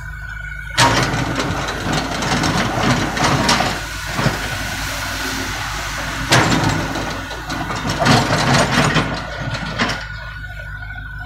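A Komatsu mini excavator's engine running steadily while its steel bucket scrapes into and scoops up a heap of broken old asphalt. The scraping and clattering of the chunks is loud, starting about a second in, coming in several surges, and stopping near the end.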